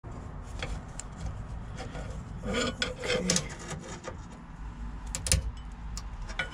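Scattered clicks, knocks and rubbing of parts and hoses being handled during reassembly of an excavator joystick mount, with one sharp knock about five seconds in.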